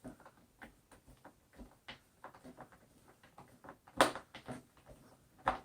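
Screws being driven into the plastic back panel of an Altec Lansing Boom Jacket speaker by hand: a run of small clicks and ticks from the screwdriver and case. A sharp knock about four seconds in and another near the end.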